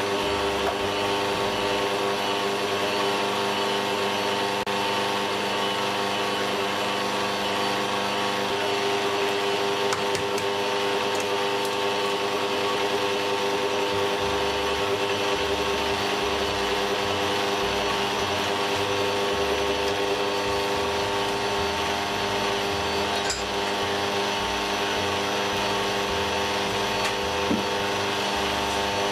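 Bosch stand mixer running at a constant speed, a steady motor whine, its beater creaming butter and sugar in a stainless steel bowl.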